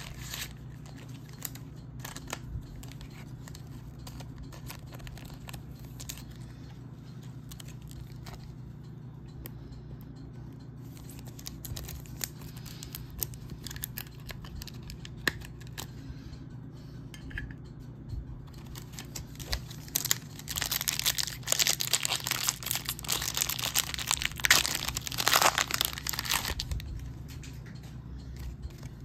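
A foil trading-card pack wrapper being torn open and crinkled in a dense burst of several seconds about two-thirds of the way through, the loudest sound here. Before it, light clicks of cards being handled over a steady low hum.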